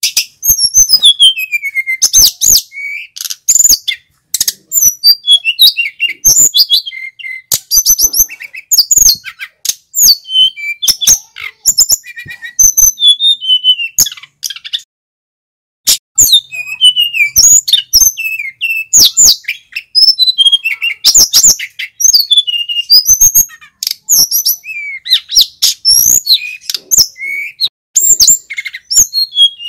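Male sikatan gunung (a mountain flycatcher) singing at full volume: rapid runs of high chirps, twitters and falling whistles, broken by a pause of about two seconds midway.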